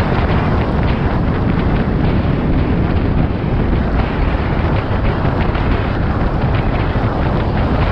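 Loud, steady wind buffeting the camera's microphone at road speed, over the hiss of tyres on a rain-soaked road.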